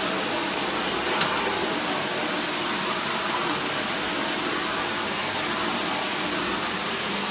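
Dyson Cinetic Big Ball Animal cylinder vacuum cleaner running steadily, its floor head being pushed over a thick shag rug.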